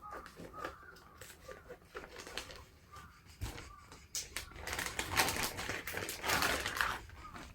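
Rustling and small clicks of an anti-snoring mask and its device being handled and fitted. The noise grows busier and louder in the second half.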